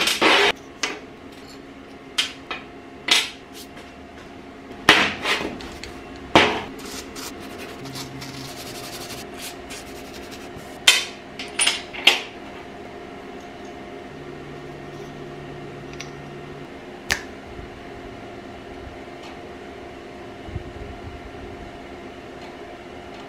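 Small steel parts of a magnetic-base dial indicator stand clicking and clinking as they are handled, taken apart and fitted back together on a workbench. The sharp clicks come in scattered groups, several in the first half and a few more near the middle, over a steady low hum.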